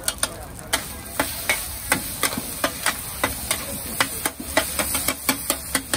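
Metal spatulas striking and scraping a large wok while stir-frying Malaysian fried radish cake (chai tow kway) with egg, a quick run of sharp clangs about three or four a second. Under them runs the steady sizzle of the radish cake and egg frying.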